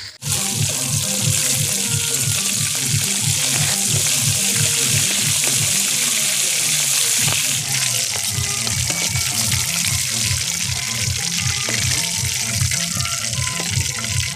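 Chicken pieces deep-frying in hot oil in a wok (karahi), a loud steady sizzle that eases a little about halfway through. Under it plays music with a steady bass beat from a loudspeaker.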